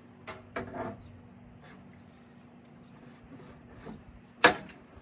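Handling noises from the heat pump's electrical access cover being fetched: a few light clicks and a scrape in the first second, then one sharp knock near the end.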